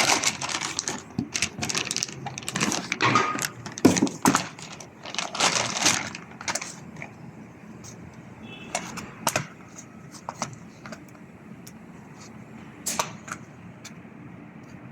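Metal tools and parts clinking and clicking during hand work: a quick run of sharp clicks and knocks for the first several seconds, then only scattered single clicks.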